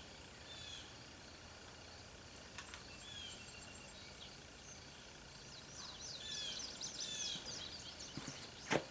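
Handling clicks from a Rock Island Armory XTM-22 .22 Magnum semi-auto pistol as a failure to feed is cleared and the magazine comes out: a few faint clicks about a third of the way in, and one sharp click near the end. Birds chirp throughout, in short repeated falling notes.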